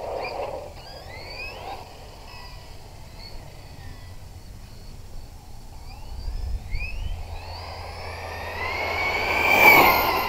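The JLB J3 Speed RC car's brushless electric motor whining through a speed run, its pitch sliding up and down with the throttle. Near the end the car comes close and passes: the whine grows loudest, then drops in pitch as it goes by.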